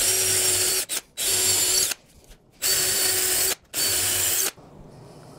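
Cordless drill running in four short bursts of about a second each, with brief pauses between, stopping a little over four seconds in.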